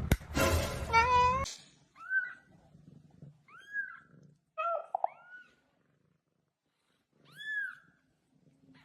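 A cat meowing about four times, short high meows that rise and fall, a second or more apart. Before them, in the first second and a half, there is a louder noisy stretch with one pitched cry.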